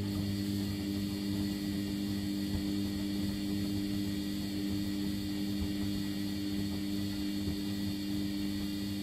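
Sharp ES-GFB7145W front-loading washing machine's drum motor turning the drum during the main wash of a 90° boil wash: a steady motor hum with water and laundry sloshing, cutting off abruptly at the end as the drum stops for its pause.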